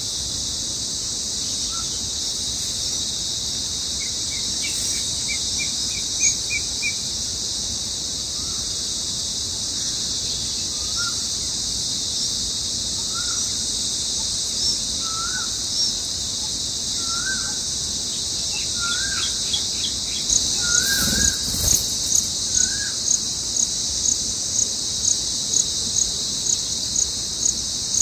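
Steady high-pitched chorus of insects, with birds calling over it: a short quick trill early on, then short rising call notes about once a second through the middle. From about two-thirds of the way in, regular high chirps come about twice a second.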